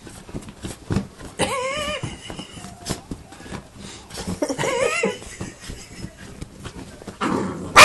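Pungsan puppy playing with a cloth: two short, high, wavering whine-yips, about a second and a half and five seconds in, over the rustle of fabric and small scratching clicks, with a loud scuffing burst near the end.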